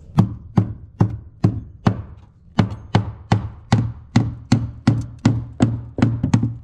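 Hammer blows nailing on a roof: a steady run of sharp strikes, about two and a half a second, with a couple of quicker taps near the end.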